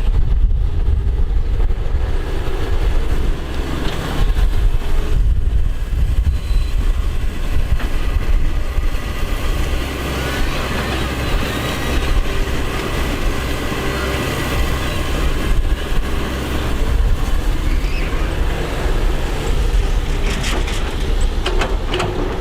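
Excavator engine running steadily under load while digging mud, a low continuous drone with a few short knocks near the end.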